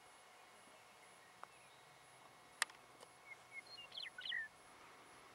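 A bird giving a quick series of short chirps from about halfway through to near the end, over faint outdoor hiss. A single sharp click comes a little before the chirps.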